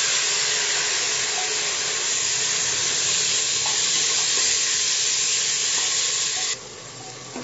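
Freshly added chopped tomatoes sizzling in hot oil and fried spice paste in a pressure cooker, stirred with a spatula. The loud sizzle cuts off suddenly near the end, leaving a much fainter sound.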